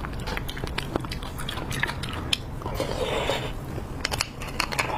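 Plastic-gloved hands handling a braised beef bone and prying at the marrow with a straw: a run of small, sharp, wet clicks and crackles, with a short rustle about three seconds in.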